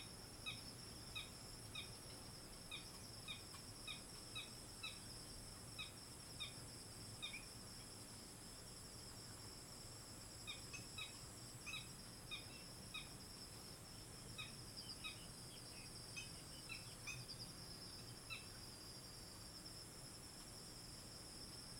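Black-winged stilts giving short, high peeping calls about twice a second, in two runs separated by a pause, over a steady high-pitched insect drone.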